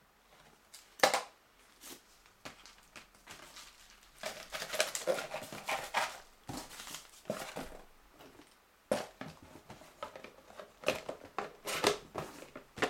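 A cardboard box being handled: card rustling and scraping as the inner box slides into its sleeve, with scattered knocks. The loudest is a sharp knock about a second in.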